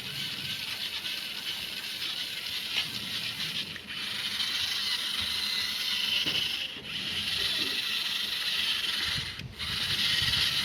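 Small DC gear motors whirring steadily, as when the RC car is driven, cutting out briefly three times.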